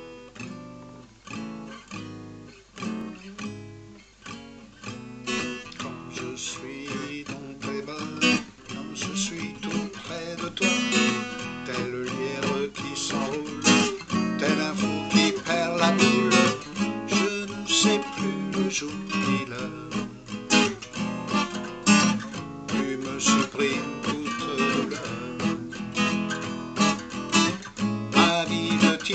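Acoustic guitar playing a song's introduction, picked and strummed, starting softly and growing fuller and louder over the first several seconds.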